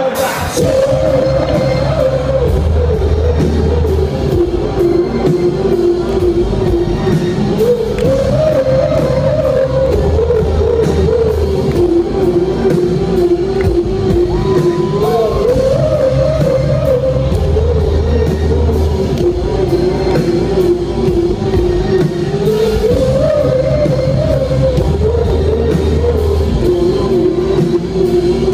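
Live rock band playing in a large hall, heard from the crowd: guitar, bass and drums under one melody line that rises and falls in a slow, repeating phrase.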